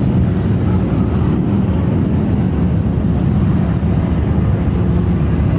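A steady, loud stream of many motorcycle engines running as a mass of bikes rides past.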